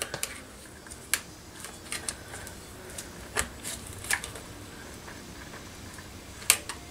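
Irregular small clicks and taps of a screwdriver and gloved fingers working a rubber fuel-line grommet into a chainsaw's fuel tank, with the sharpest click near the end.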